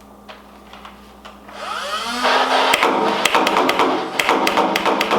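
Nerf Rival Nemesis MXVII-10K motorised blaster: its flywheel motors spin up with a rising whine, then it fires full-auto, a rapid even string of shots at about seven a second over the motor hum.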